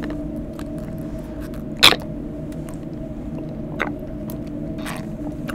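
A steady low hum with a few short clicks over it; the loudest is a sharp noise about two seconds in.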